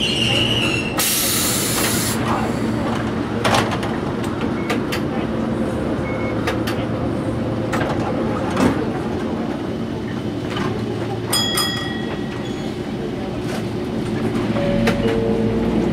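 Inside a Toyohashi Railway 3500-series tram standing at a stop: the car's equipment hums steadily. A short loud hiss of air comes about a second in, and a brief ringing tone sounds about eleven seconds in, with scattered clicks and knocks from the cabin.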